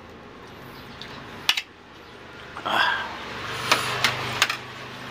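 Metal spoon scooping rice, scraping and clinking against the plate and metal table top, with a few sharp clinks about a second and a half in and again over the last couple of seconds. A faint low hum sits underneath in the second half.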